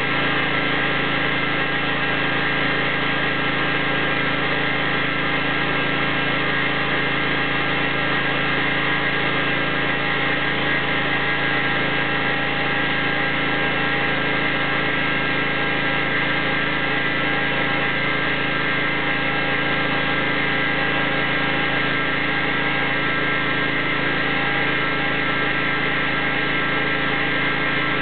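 Craftsman riding mower's 24 hp Briggs & Stratton V-twin engine running at a steady high speed under a burnout, with a rough rushing noise over the engine note.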